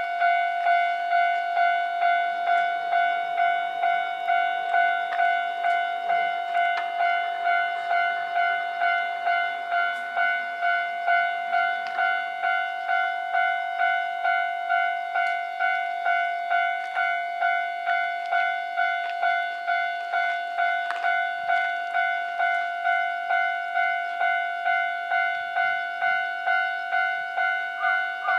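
Japanese railway level crossing warning bell ringing: an electronic ding repeating steadily about twice a second.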